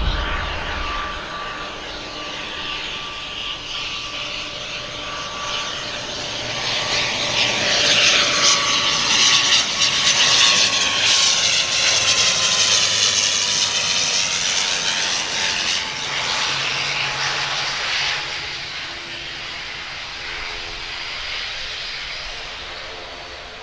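Wings Air ATR 72 twin turboprop (Pratt & Whitney PW127 engines) flying low on final approach. The engines and propellers hum with a steady tone that slowly drops in pitch as the aircraft passes. The sound swells to its loudest mid-way and then fades as it goes by to land.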